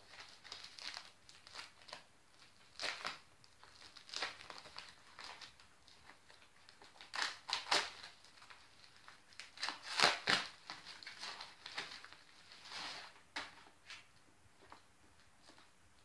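A mailed package being opened by hand: its wrapping is torn and crinkled in irregular rustles and rips, loudest about seven and ten seconds in.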